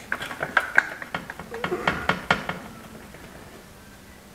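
Steel spanner clinking and tapping against a bolt and the steel tube of a VW Beetle front axle beam while the bolt is being loosened. There are several sharp metallic clinks in the first two seconds or so, then it goes quieter.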